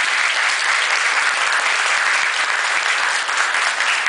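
A roomful of people applauding, dense and steady hand-clapping.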